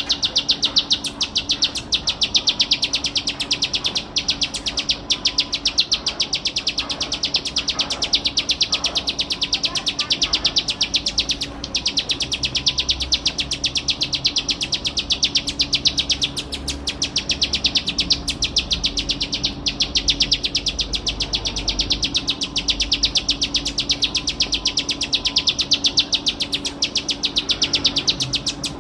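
Plain prinia (ciblek sawah) singing without pause: a fast, unbroken chatter of short high notes, many per second, broken only by a few very brief gaps.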